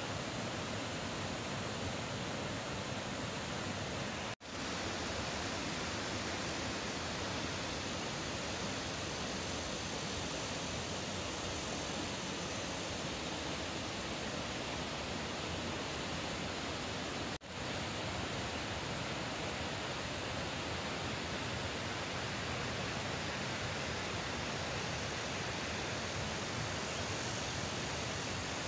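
Floodwater rushing out of a reservoir dam's sluice gates during a flood release, a steady, even roar of churning water. The sound cuts out abruptly for an instant twice, about four seconds in and again near seventeen seconds.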